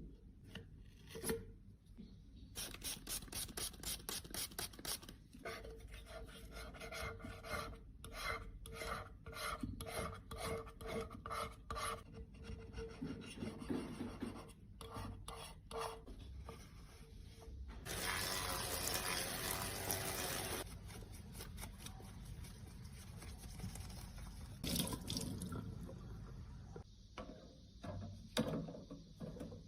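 Rapid, repeated scraping and rubbing strokes of a tool working makeup product, about three to four strokes a second. About eighteen seconds in comes a longer continuous rasp of some two and a half seconds, then slower scattered scrapes.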